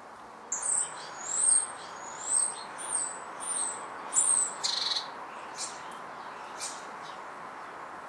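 Small songbird calling: a quick run of about eight high, thin, slurred notes over four seconds, then two faint short notes.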